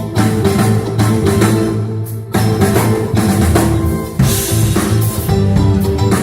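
Live band playing through a PA during a sound check: drum kit with kick drum and snare, bass notes and guitar.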